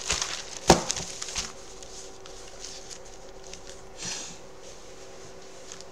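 Paper and a notebook being handled on a desk: rustling and light clicks, with one sharp knock about a second in. After that only a faint steady hum remains.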